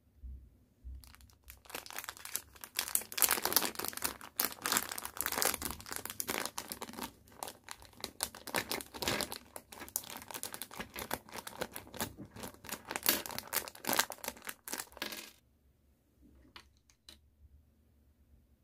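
Thin clear plastic bag crinkling and rustling as hands open and handle it, a dense crackle lasting about fourteen seconds. It stops suddenly, followed by a few light clicks.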